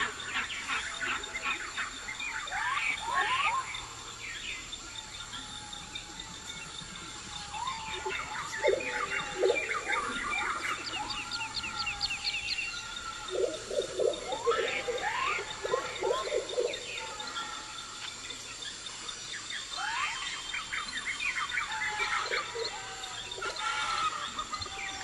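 Designed forest ambience: many birds chirping and trilling in overlapping calls, with a quick rattling trill about halfway through and clusters of lower calls. A thin steady high tone runs underneath.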